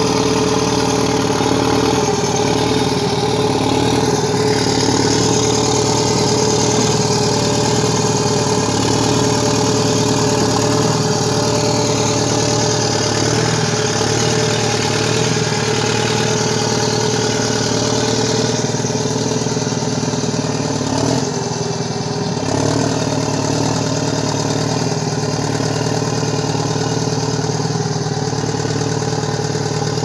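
Hanomag D540E crawler bulldozer's diesel engine running steadily and loud as the dozer pushes earth with its blade, with a brief dip about 21 seconds in.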